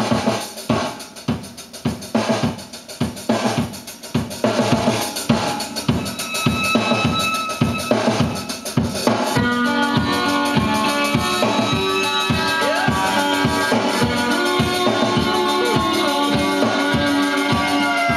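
Recorded music playing back from a cassette on a 1976 Magnavox cassette player running on new belts: a drum-kit opening of beats, with the full band coming in about nine seconds in.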